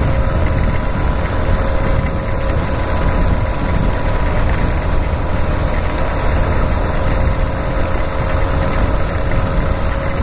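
Yamaha XTZ 250's single-cylinder engine running steadily at cruising speed, under a constant rush of wind and road noise.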